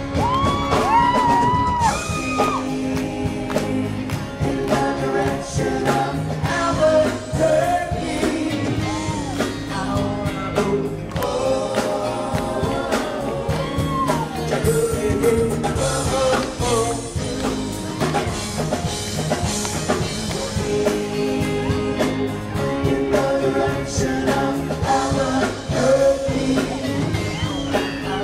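Live band music with a lead singer.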